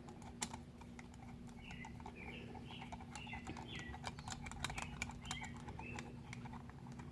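Small, irregular clicks and taps of metal starter-motor parts being handled and fitted by hand. A bird chirps a quick series of short notes in the background through the middle, over a steady low hum.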